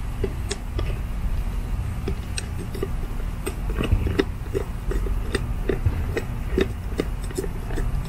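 Irregular small clicks and ticks, a few a second, as fingers work at the plastic bonnet and screws of a Hunter sprinkler valve in its valve box, over a steady low rumble.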